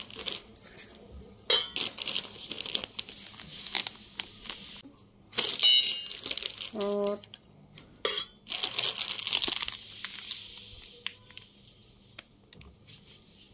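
Plastic packet of semolina crinkling and rustling in repeated bursts as it is handled and poured, with a couple of sharp clicks.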